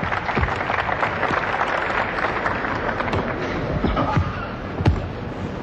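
Arena crowd applauding and cheering, with a few basketball bounces thudding on the court, the last one near the end.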